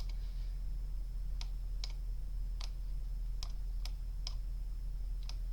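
About eight scattered, irregular clicks from a computer mouse and keyboard being worked, over a steady low electrical hum.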